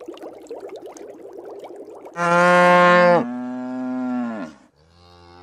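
Aquarium water bubbling, then about two seconds in a cow gives one loud, long moo that drops in pitch partway through and trails off.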